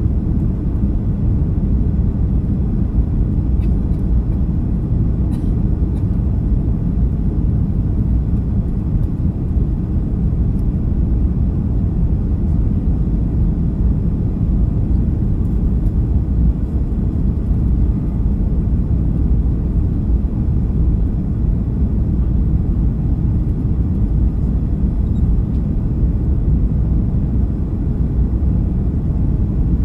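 Cabin noise of a Boeing 737-300 on approach with its flaps extended: a steady low rumble of airflow and engines.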